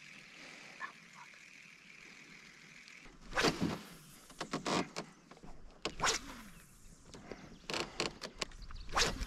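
Handling noise in a canoe while fishing: a quiet start, then from about three seconds in a run of irregular sharp knocks and rustles as the rod, reel and gear are moved against the hull.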